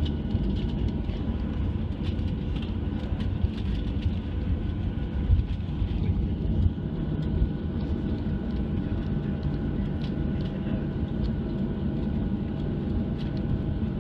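Cabin noise of a Boeing 737-700 taxiing: a steady low rumble with the CFM56 engines' idle whine, light cabin rattles, and a few louder bumps from the landing gear around the middle.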